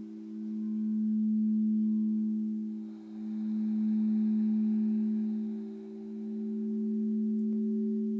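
Singing bowl humming one steady low tone with its overtones, swelling and fading in loudness about every three seconds.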